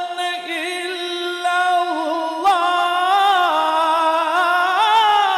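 A male qari's voice reciting the Quran in melodic tajweed style, holding one long drawn-out vowel with ornamented, wavering pitch, freshly attacked about halfway through.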